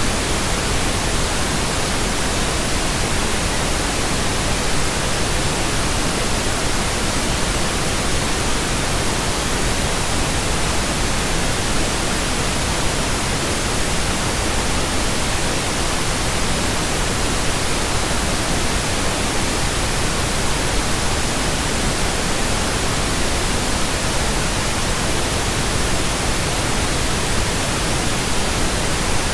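Synthetic pink noise: a steady, even hiss across the whole range, with no change in level.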